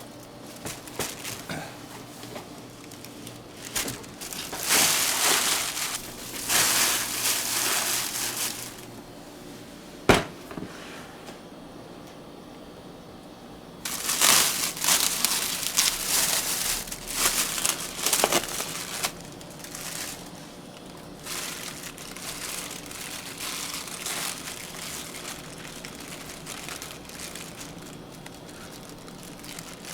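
Paper or plastic being handled and crinkled in loud rustling bursts, with a single sharp knock about ten seconds in and lighter rustling near the end.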